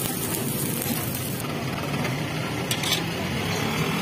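Food sizzling on a flat iron griddle, the hiss falling away about a second and a half in, with a couple of short metal clicks of a flat spatula on the griddle near three seconds in, over a steady background hum.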